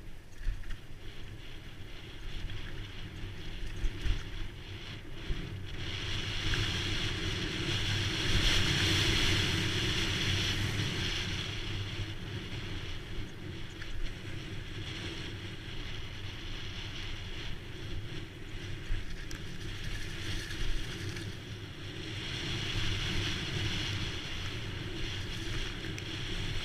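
Wind rushing over a camera microphone on a mountain bike going downhill, with the rumble of tyres on a dirt trail and a few sharp knocks from bumps. The rush swells loudest around a quarter of the way in and again near the end.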